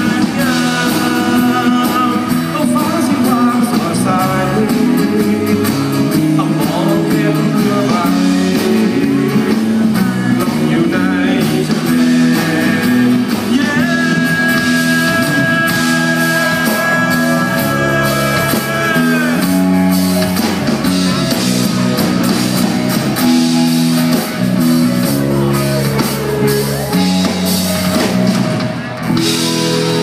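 Live rock band playing loudly: electric guitars, bass, drums and singing, with a long held high note in the middle.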